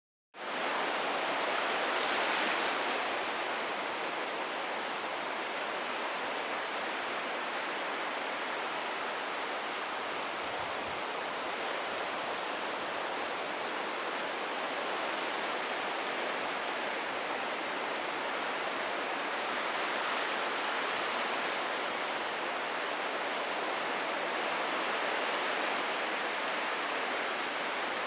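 Ocean surf washing on a beach: a dense, steady rush of water noise, starting right at the beginning, with gentle swells in loudness a couple of seconds in and again near the end rather than distinct crashes.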